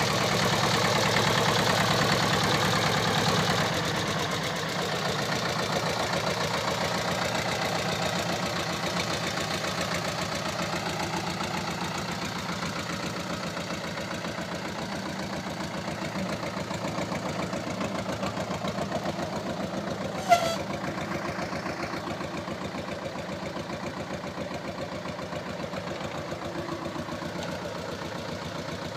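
SAME 250 tractor engine running steadily while ploughing, growing slowly fainter. A single short, sharp knock is heard about two-thirds of the way through.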